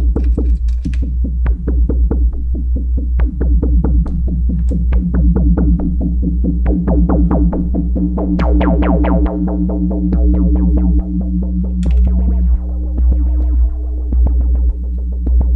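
Make Noise Eurorack modular synthesizer playing a sequenced electronic patch: a quick stream of short notes over held tones and a low pulsing bass. The notes grow busier about halfway through as the patch is adjusted.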